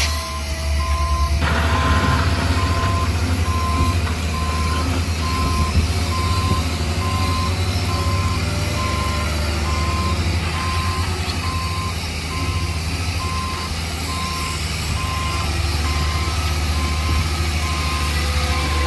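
Reversing alarm on a heavy diesel construction machine: evenly spaced beeps, about one and a half a second, over the low drone of the engine running. A broader rush of machine noise comes in about a second and a half in.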